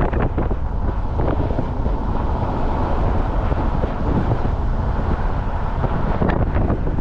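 A steady low rumble with the rush of wind on the microphone, and a couple of faint clicks about six seconds in.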